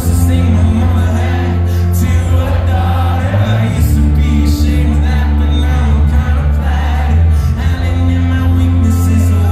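Live rock band playing a song at full volume, with singing, heavy boomy bass and cymbal crashes, heard from within the crowd.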